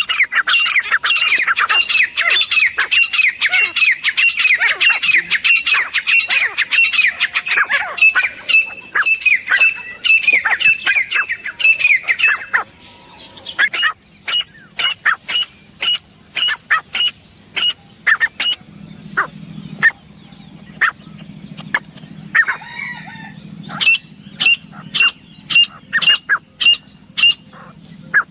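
Grey francolin calling: a fast, dense run of repeated high, falling notes for about twelve seconds, then sparser sharp single notes, about two a second.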